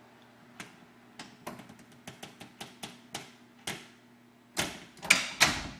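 A door closing under its overhead door closer: a run of light clicks and knocks, then louder knocks near the end as the door reaches the frame and latches.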